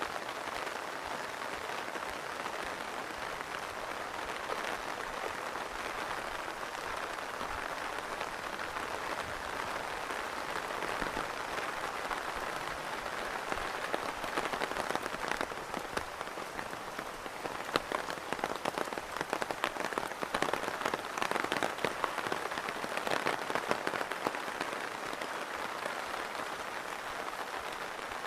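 Heavy rain falling steadily in a dense patter of drops. From about halfway through to near the end, louder close drop hits crackle over the steady hiss.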